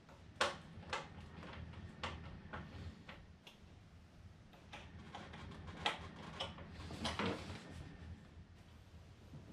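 Irregular clicks, taps and knocks of hands handling and fitting the wing struts and plastic parts on a foam RC airplane fuselage, the sharpest about half a second in and again around six and seven seconds in.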